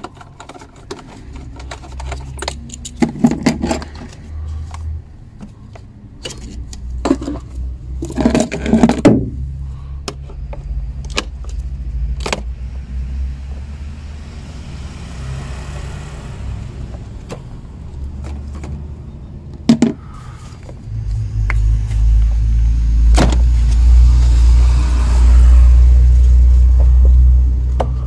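Clicks, taps and knocks of hard plastic engine-bay parts being unscrewed with an Allen key and handled: the air-filter housing and intake duct of a VW Passat B6. The knocks are loudest a few seconds in and around a third of the way through. From about three-quarters through, a loud steady low rumble takes over.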